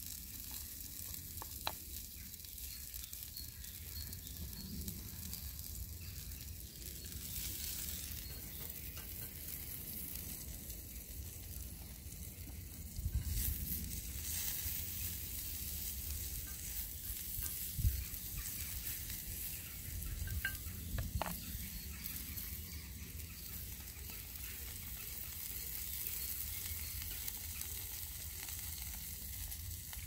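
Food sizzling as it fries in a pan over a small twig stove, a steady hiss with a few knocks and taps, the loudest about halfway through.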